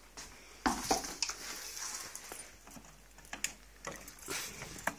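Handling noise from a handheld phone being moved about: a string of short knocks, clicks and rustles, the loudest about two-thirds of a second in.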